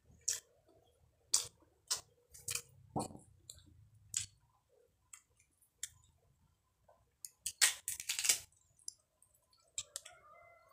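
Young jengkol (dogfruit) being peeled by hand: scattered sharp, crisp clicks and cracks as the tough dark skin splits, with a denser run of cracking later on.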